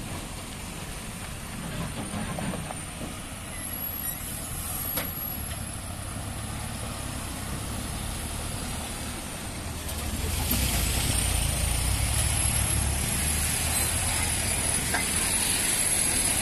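Heavy lorry diesel engines running at low speed as trucks pass, growing louder about ten seconds in as a multi-axle Eicher lorry comes close. A thin high whistle rises and falls over the engine noise, and there are a couple of sharp clicks near the start.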